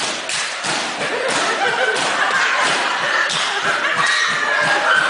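A seated dance group beating out a steady rhythm of hand claps and slaps, about three strokes a second, with voices calling out over the beat from about two seconds in.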